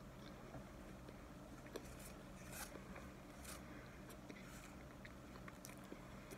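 Faint chewing of a mouthful of cornstarch, with a few soft crunches about a second apart and small clicks.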